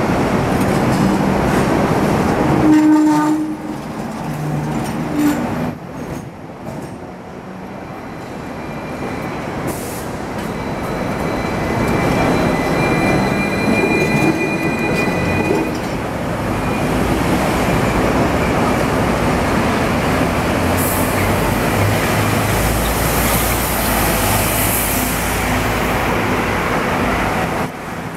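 Hong Kong double-decker electric tram running past close on a curve, its steel wheels rumbling and squealing on the rails amid street traffic noise. Near the end a double-decker bus's engine rumbles past.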